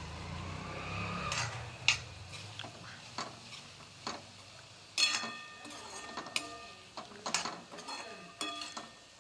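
Steel spoon stirring soya chunks into frying masala paste in a steel kadhai, with a light sizzle. The spoon knocks and scrapes against the pan in sharp metal clinks, several of them ringing on, the loudest about two seconds in.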